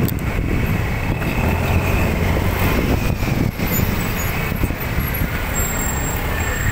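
Steady road noise from a motorcycle riding through slow, dense city traffic: the bike's running engine and rushing noise, with cars, vans and a bus close around it.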